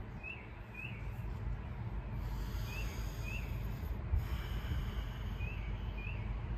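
A bird calling in pairs of short chirps, three pairs in all, over a low steady rumble.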